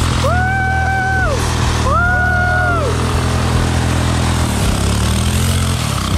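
Yard kart's small gas engine running hard at steady high revs through a burnout, its rear tyres spinning in the dirt, with a brief dip in revs past the middle. Two long shouts from a person near the start.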